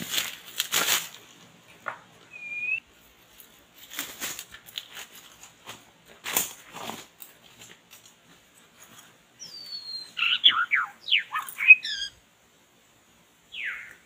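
Bursts of rustling and fluttering, then a white-rumped shama (murai batu) giving a quick run of loud whistled notes and sweeps about ten seconds in, with a short chirp early and a single falling whistle near the end.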